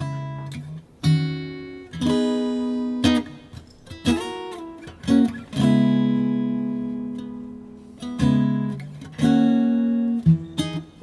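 Acoustic guitar playing an unhurried chord intro: chords are strummed roughly once a second, and some are left to ring for two or three seconds as they fade.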